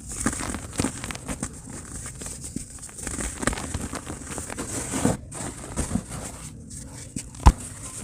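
Dry pure cement crumbling in a tub: a dense, irregular run of small gritty crackles and crunches, with one sharp, loud crack near the end.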